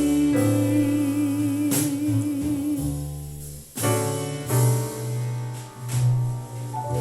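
Recorded ballad played back through a Telefunken RA 100 integrated amplifier. A singer holds a long note with vibrato for about three seconds. Then sustained instrumental chords over a steady bass carry on without voice.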